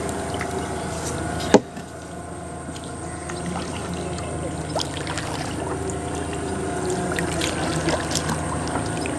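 Water lapping and trickling against a wooden canoe's hull as it is paddled, with one sharp knock about a second and a half in.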